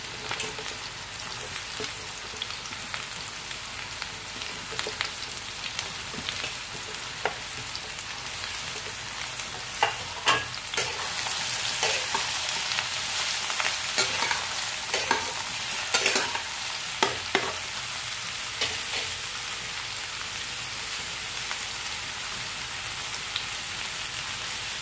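Sliced sponge gourd (nenua) sizzling as it fries in hot oil in a kadhai. A spatula scrapes and taps against the pan as the slices are stirred, the clicks coming mostly in the middle stretch.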